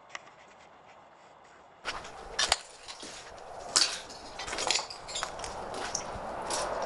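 Footsteps crunching over broken debris on a littered floor, with irregular clicks, clinks and snaps. Faint scattered ticks for about the first two seconds, then the crunching grows much louder.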